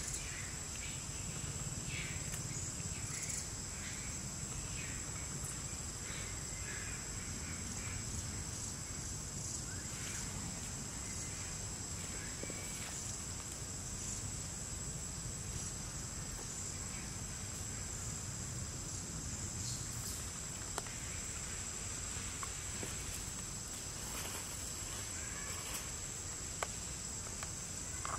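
Steady high-pitched drone of insects, with faint short chirps scattered over it.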